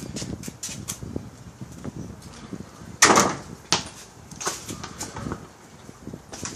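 Soccer ball kicked: a loud thump about three seconds in, then a smaller knock a moment later, with light taps and scuffs before it.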